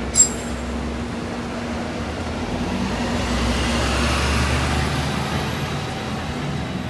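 Street traffic: a motor vehicle passes close by, its noise swelling to a peak about four seconds in and then easing, over a steady low hum. A sharp click sounds just after the start.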